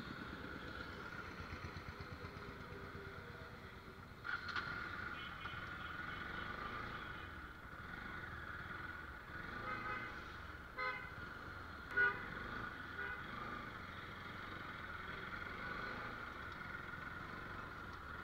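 Bajaj Pulsar NS motorcycle's single-cylinder engine running as the bike rides along a street, with several short vehicle horn toots, including a quick run of them about two-thirds of the way through and the loudest one just after.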